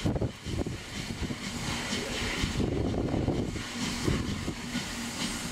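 Steam locomotive moving slowly, running tender first; a faint steady hum joins about four seconds in.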